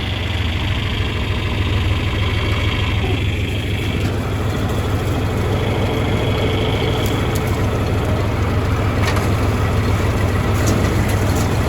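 Tractor engine running steadily, a constant low rumble, with a few light knocks over it.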